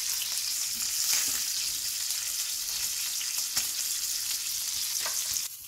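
Duck breast frying skin side down in its own rendered fat in a nonstick pan: a steady sizzle with scattered small crackles. It stops abruptly near the end.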